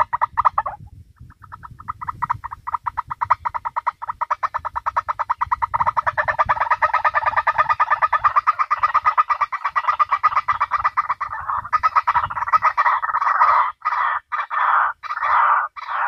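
White-breasted waterhen (ruak-ruak) call played through a small horn loudspeaker as a trapping lure: a fast, even run of short notes. Near the end it breaks into slower, separate calls, about two a second.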